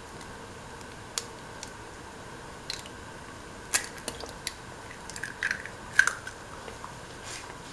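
Coconut milk stew simmering in a pot, with irregular small pops and clicks of bubbles bursting over a steady low hiss; the loudest pop comes about six seconds in.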